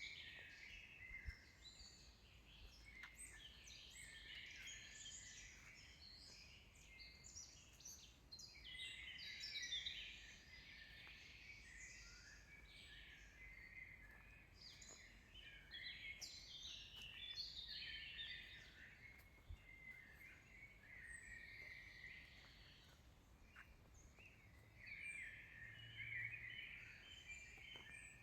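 Songbirds singing faintly in a summer forest, a near-continuous chorus of overlapping chirps and trills.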